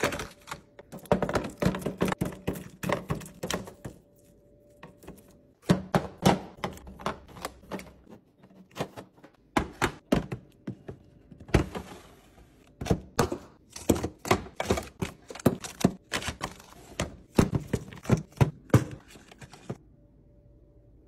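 Packaged snacks and plastic food containers being set down and slid into clear plastic fridge organizer bins: a dense run of sharp clicks, taps and knocks with a couple of short pauses, stopping about a second before the end.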